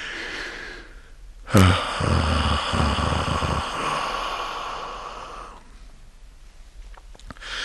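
A person's long, breathy sigh, starting about one and a half seconds in and fading away over several seconds.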